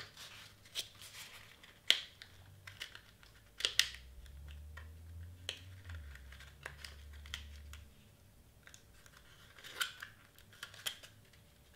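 Stiff glitter cardstock being bent and rolled by hand into a small cone, with scattered crinkles and sharp clicks as its tabs are pushed into their slots.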